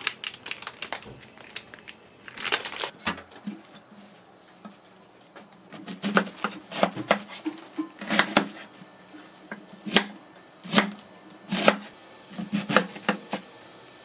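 Kitchen knife chopping on a cutting board: sharp knocks in uneven bursts of a few strokes, with short pauses between them.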